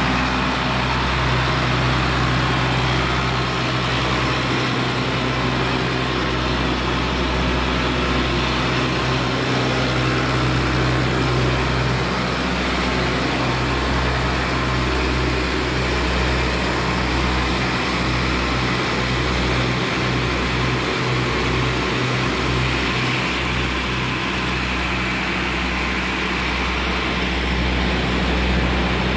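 Weichai WP6B144 diesel engine running steadily under load, driving a 30-inch axial-flow pump, with water rushing from the pump outlet.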